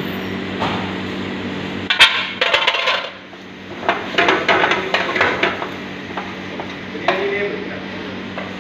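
Metal ladle clinking and scraping against a frying pan as rice is stirred and tossed, in short bursts of clicks, with one sharp metal clank about two seconds in. A steady low hum runs underneath.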